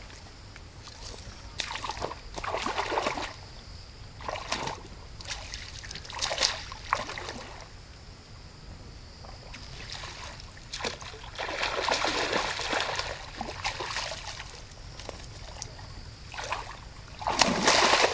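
Irregular splashing at the water's surface as a small hooked carp is pulled in on a bottom line. Several short splashes come first, then a longer run of splashing a little after the middle and another just before the end.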